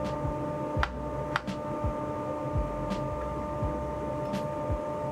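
Open-end wrench and steel table saw blade clinking as the arbor nut is loosened to change the blade: a few sharp metallic clicks, the loudest about a second in and half a second later, over a steady hum.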